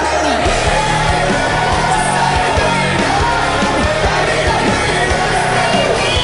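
Background music: a song with a singing voice, loud and steady throughout.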